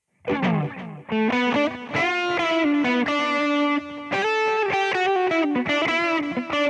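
Fender Stratocaster Blacktop electric guitar played through a Boss GT-100's Twin Reverb amp emulation: a lead phrase of single notes with several held notes, opening about a quarter second in with a quick slide down in pitch.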